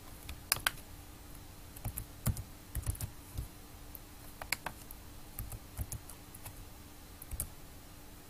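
Computer keyboard typing: scattered, irregular keystrokes as numbers are entered, over a faint steady hum.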